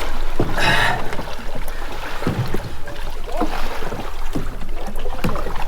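Sea-Doo personal watercraft engine idling on the water with a steady low rumble, mixed with water sloshing and a brief hiss about half a second in.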